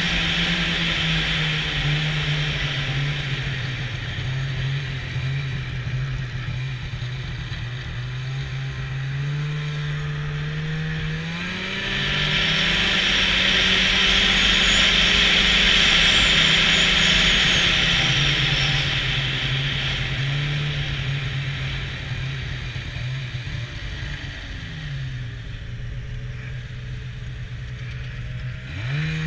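Snowmobile engine running under way with no talk. It speeds up about twelve seconds in and gets louder with a strong hiss, then eases off and slows past the middle, and revs up again at the very end.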